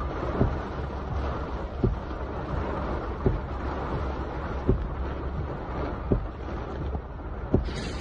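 Steady rush of storm wind and rain heard from inside a moving car, with a regular low knock about every second and a half.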